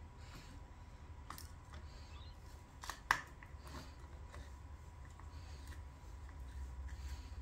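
A few faint, scattered metallic clicks as a hex key is worked into and turned in the bolt of an aftermarket bar-end mirror, the sharpest click about three seconds in, over a low steady hum.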